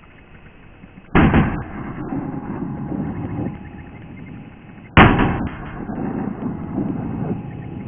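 Shotgun fired twice, about four seconds apart, each shot followed by an echo that fades over a second or two.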